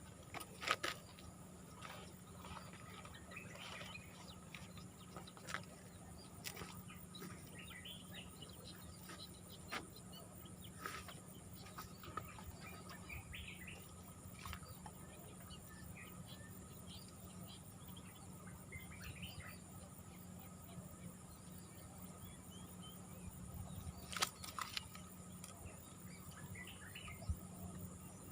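Small birds chirping faintly and repeatedly, with a few sharp knocks or clicks scattered through, the loudest a pair about three-quarters of the way in.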